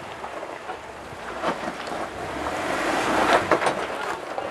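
Off-road vehicle bumping forward on rock, its engine and tyres growing louder, with a few sharp clunks in the second half as the differential locker finally engages.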